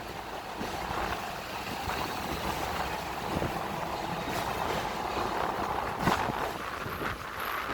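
Hong Kong tram running along its rails: a steady rumble and rattle with scattered knocks, the sharpest about six seconds in.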